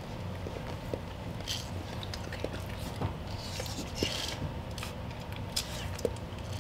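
Cane Corso mother licking and mouthing a newborn puppy: wet licks, small clicks and brief hissing snuffles, with towels rustling under her.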